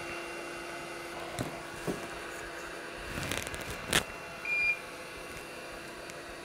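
Small clicks and taps of hand tools being picked up and set down on a repair mat, over a steady fan hiss, with one short high electronic beep about four and a half seconds in.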